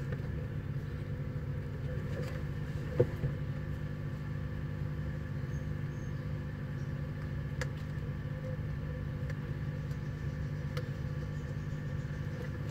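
Steady low mechanical hum with a few faint, short clicks.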